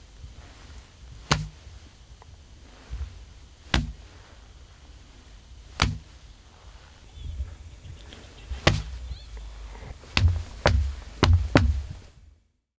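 Sharp smacks made with a bodybuilder's muscles, recorded as sound effects for an animated fight scene: single smacks every two to three seconds, then four quicker ones near the end.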